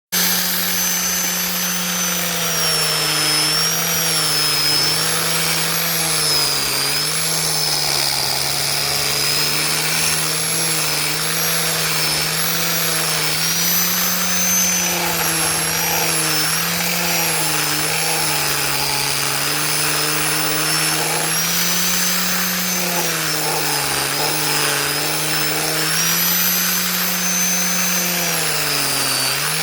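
Electric power sander running against a mahogany wooden box, its motor whine dipping in pitch and recovering again and again as it is pressed onto the wood, over a steady abrasive hiss.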